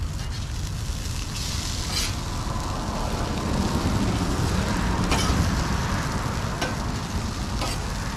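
Hash browns sizzling on a Blackstone flat-top griddle as they are turned with a metal spatula, with a few short scrapes and clicks of the spatula on the steel, over a steady low rumble.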